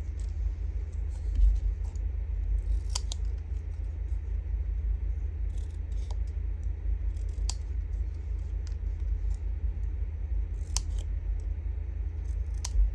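Small scissors snipping paper: a handful of separate snips cutting a triangular banner notch into the end of a paper strip. A steady low hum runs underneath.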